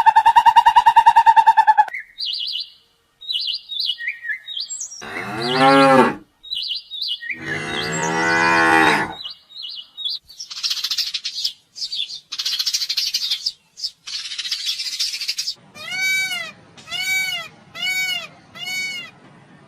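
A run of different animal calls: short high bird chirps, then a cow mooing twice, two long low calls that rise and fall. Hissing bursts follow, and near the end come five short, evenly spaced calls, each rising and falling in pitch.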